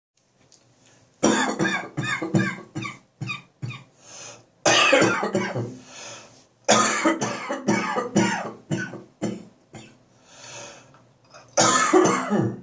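A man's dry, hacking cough lingering after bronchitis, in four fits of several rapid coughs each, with breaths drawn in between the fits.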